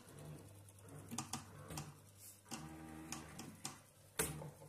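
Irregular light clicks and knocks, a few a second with uneven gaps, the loudest about four seconds in.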